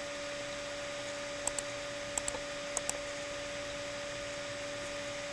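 Computer mouse clicks: three quick pairs of clicks spread over about a second and a half, over a steady hiss and electrical hum from the recording.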